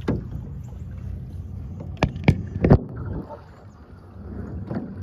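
A clear-hulled kayak on the water, with a steady low rumble of water and wind and three sharp knocks in quick succession about two seconds in.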